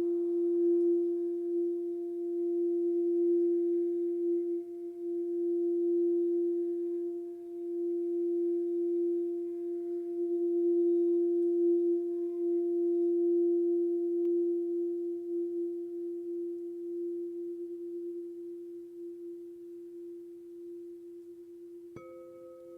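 Quartz crystal singing bowl ringing with one steady low tone, wavering in loudness and slowly fading over the second half. Near the end a second, higher-pitched bowl is struck and starts ringing over it.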